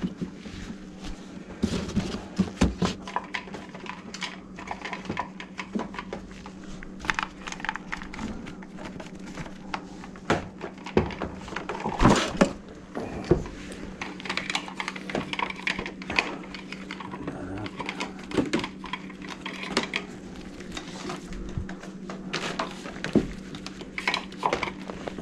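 Metal tools and pipe fittings clinking and clattering as they are handled and set down, with irregular knocks throughout over a faint steady hum.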